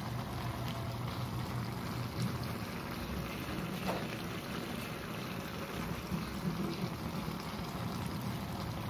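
Pan of pinakbet stew simmering on a lit gas burner: a steady low rushing with a light crackle.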